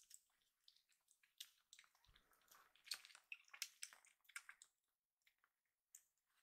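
Kitten suckling on a milk bottle's teat: faint, irregular wet smacking and clicking, thinning out over the last second or two.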